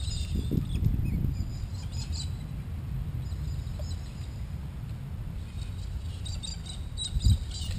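Low rumble of wind on the microphone, with birds chirping now and then and a single thump near the end.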